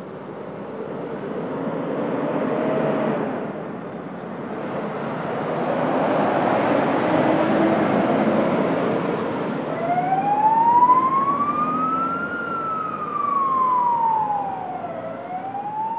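Scania P370 fire engine pulling out and driving past close by, its engine and tyre noise swelling and fading. About ten seconds in, its siren starts a slow wail that rises, falls and rises again.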